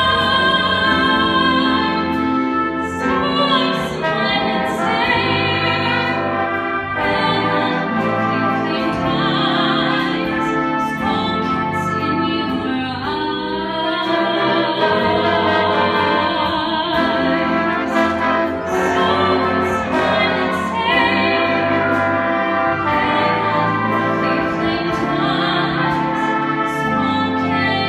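A jazz band with brass playing while a vocalist sings held notes with a wide vibrato.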